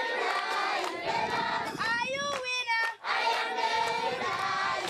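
A group of voices singing together in long held phrases, with a brief break about three seconds in.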